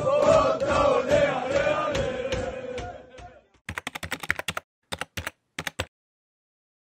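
Supporters chanting together, fading out over the first three seconds or so. Then comes a quick, uneven run of about a dozen sharp clicks with dead silence between them, and then silence.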